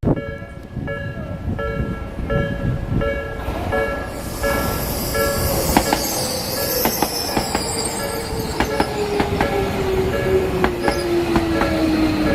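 Japanese level-crossing warning bell ringing steadily, about two dings a second, as a train comes through: from about four seconds in there is high-pitched wheel squeal and a series of clicks from the wheels over rail joints, and later a motor whine that slides slowly down in pitch.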